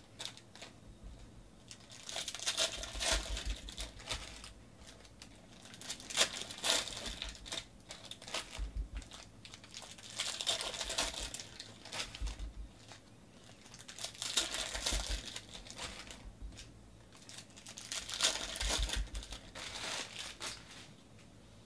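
Foil trading-card pack wrappers being torn open and crinkled by hand, in bursts about every four seconds with quieter handling between.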